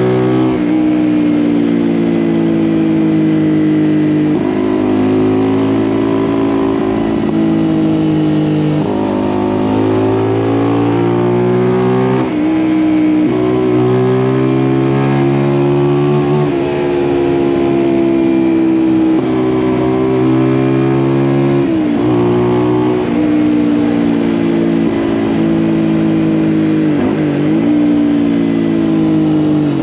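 Zontes U1 125 single-cylinder engine running through an aftermarket Turbokit GP H3 exhaust while being ridden on the road. The pitch rises and falls with the throttle and drops sharply several times.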